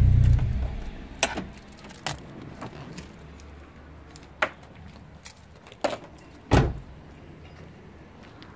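Renault Clio Sport's four-cylinder engine idling, then dying away within the first second as it is switched off. A handful of clicks and knocks from keys and the car door follow, the loudest a heavy door slam about six and a half seconds in.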